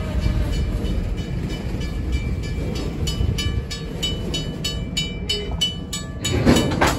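Union Pacific local freight train's diesel locomotive rumbling while switching, with a bell ringing in quick, even strokes that comes in strongly about three seconds in. A brief loud rush of noise near the end.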